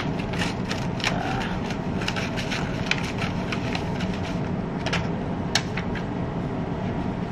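Sheets of vellum and paper being handled and shuffled, giving scattered rustles and crinkles, over a steady low background rumble.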